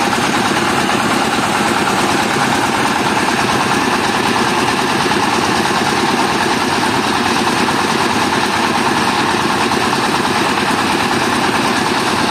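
Mobile rice mill running steadily under load: its diesel engine driving the huller and polisher as rice is milled.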